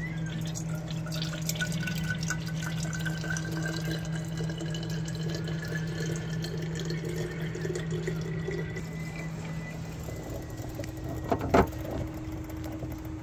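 Water running from a drinking-water faucet into a container, with a faint tone that rises slowly in pitch as the container fills. A steady hum underneath stops about ten seconds in, and a sharp knock follows about a second later.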